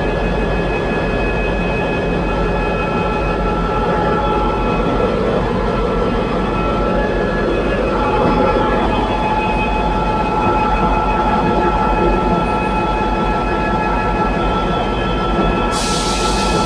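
Loud, steady engine-room din of a running 16-cylinder EMD marine diesel, with several steady whining tones over the rumble. A sudden hiss joins near the end.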